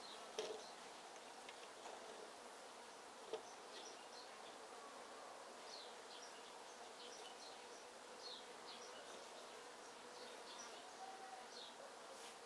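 Faint background ambience: a steady low buzz with scattered short high chirps, and two light clicks, about half a second and three seconds in.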